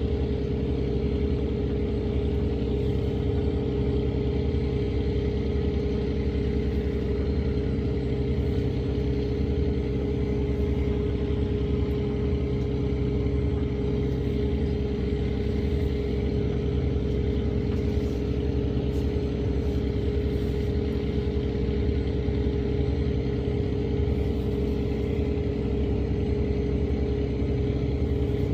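A steady motor hum with an unchanging mid-pitched tone, running evenly without rising or falling.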